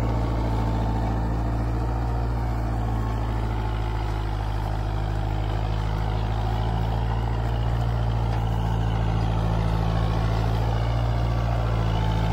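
Kubota four-wheel-drive tractor's diesel engine running steadily under heavy load in first high gear, pulling an 11-tine cultivator and a 14-disc harrow at once.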